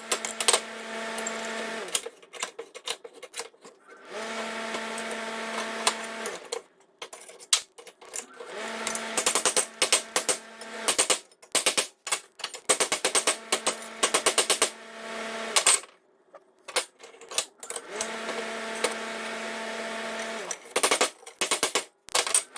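A piece of steel being flattened: bursts of rapid, sharp metallic blows alternate every few seconds with spells of a steady pitched hum.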